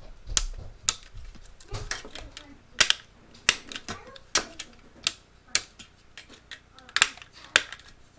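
Silicone pop-it fidget toy being popped: about a dozen sharp, separate pops, roughly one every half second to second.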